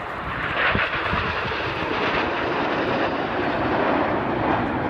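Jet noise of a formation of nine BAE Hawk T1 jets flying past: a broad rushing sound that grows louder over the first second or so, then holds steady.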